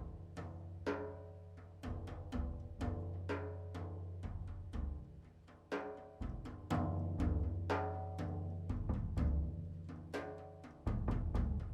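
Improvised experimental percussion: struck objects hit several times a second in an uneven rhythm, each strike leaving a short pitched ring, over a steady low drone.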